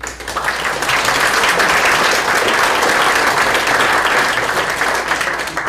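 Audience applauding, building up over the first second, holding steady, and dying away near the end.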